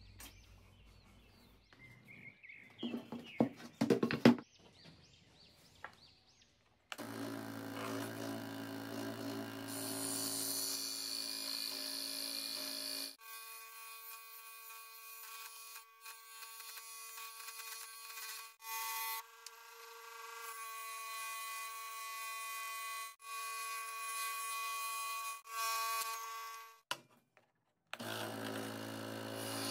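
Small benchtop electric saw with a thin vertical blade running and cutting through a block of hardwood, a steady motor whine with the hiss of the blade in the wood. It starts about seven seconds in after a few faint handling noises and breaks off briefly several times as the cut goes on.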